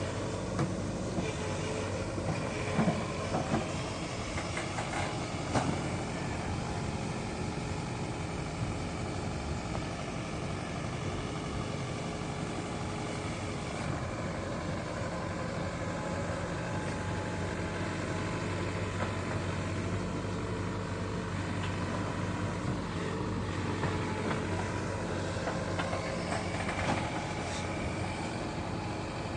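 Excavator diesel engine running steadily, with a few short clanks in the first few seconds.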